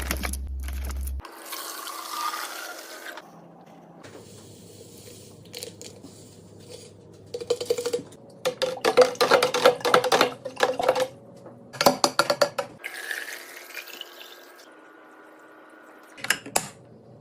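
Fridge-restocking sounds in several short cuts: liquid poured into containers, once with a rising tone as a container fills, and a run of quick clicks and taps of containers and lids being handled.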